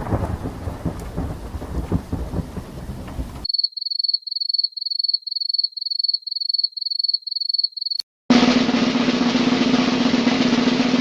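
Rain with rolling thunder that cuts off abruptly, followed by a run of about a dozen short high-pitched beeps, roughly two and a half a second. After a brief silence, a sustained drum roll comes in.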